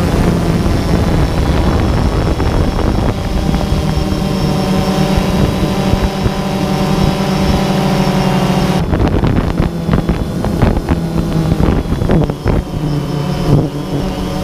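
Multirotor drone's electric motors and propellers running with a steady hum, heard from the onboard camera, the pitch shifting as the throttle changes. From about nine seconds in, uneven wind buffeting on the microphone is mixed in as the drone climbs.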